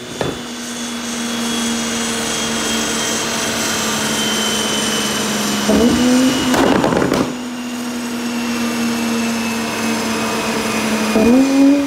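Porsche 991 Turbo S twin-turbo flat-six with a tuned Inconel exhaust, idling after a lift-off that sends flames out of the tailpipes. About six seconds in it is blipped briefly and crackles and pops on the overrun for about a second. Near the end it is blipped again.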